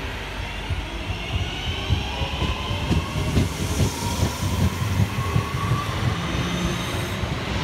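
Northern Class 323 electric multiple unit accelerating away from a station stop. Its traction motors whine, slowly rising in pitch, over a run of low knocks from the wheels on the track.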